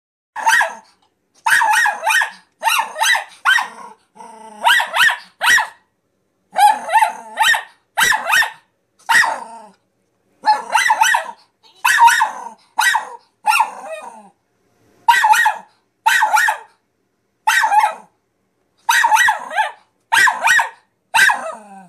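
Young miniature pinscher barking repeatedly at a piggy bank, sharp barks in quick groups of two or three with short pauses between.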